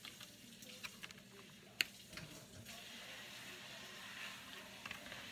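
Quiet chewing of flounder, with light clicks and scrapes of a plastic fork in a styrofoam takeout container; one sharp click about two seconds in.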